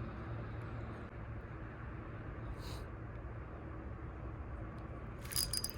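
Faint, steady background noise with a low hum. A short burst of clicking and rustling comes near the end.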